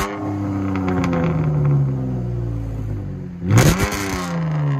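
Exhaust of a 2014 Dodge Charger's 3.6-litre V6 with a true dual exhaust and Dynomax Race Bullet resonators, free-revving. The revs fall slowly from a blip, one more quick throttle blip comes about three and a half seconds in, and the revs fall away again.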